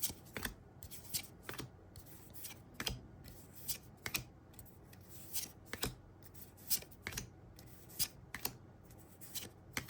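Gundam trading cards handled one at a time out of a freshly opened booster pack: sharp card snaps and slides at irregular intervals, roughly one or two a second.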